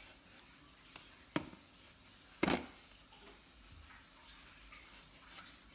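Hands kneading and punching bread dough in a bowl: quiet handling with two sharp thumps, about one and a half and two and a half seconds in.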